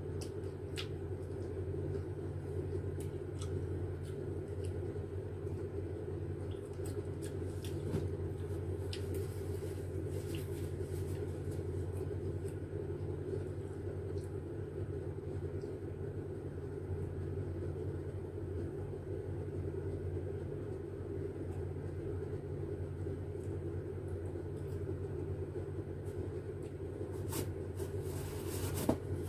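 A steady low hum of background room noise, with scattered short clicks and smacks from eating mango slices and picking them out of a bowl by hand. The clicks come a little thicker near the end.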